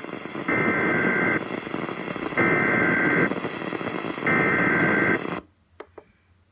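Emergency Alert System data header: three identical buzzing bursts of about a second each, a second apart, over radio hiss. The hiss cuts off suddenly after the third burst, leaving a few faint clicks.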